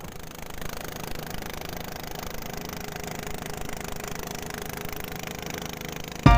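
Small boat's engine running steadily at cruising speed, with the rush of the hull through the water. Music starts abruptly at the very end.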